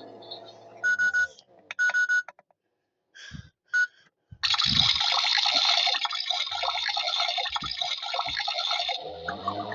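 Toy washing machine: a low motor hum stops, a few short electronic beeps sound, then water gushes in for about four seconds. Near the end the hum starts again with small bubbling sounds.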